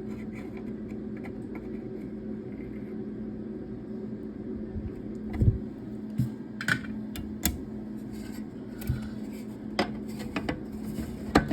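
Light metallic clicks and taps from soldering work on a CB amplifier's metal lid, scattered through the second half, over a steady low hum.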